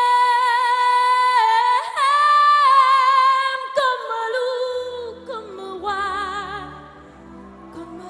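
A woman singing solo into a microphone, holding long sustained notes with no accompaniment at first. About halfway through, low instrumental chords and a bass come in beneath her voice, and her notes take on a wide vibrato.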